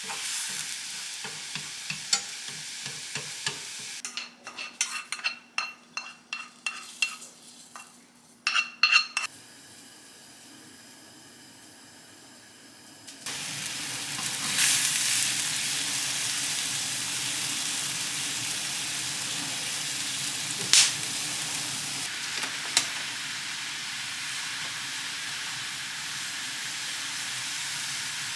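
Food sizzling and frying in a pan, with utensils clinking and scraping against it. About halfway through, the sizzle becomes louder and steady, with a couple of sharp clicks.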